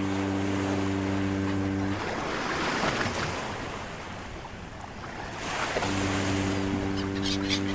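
A steady low droning tone drops out after about two seconds into a wash of surf-like noise that swells and fades. The drone returns about six seconds in, with a few short high chirps near the end.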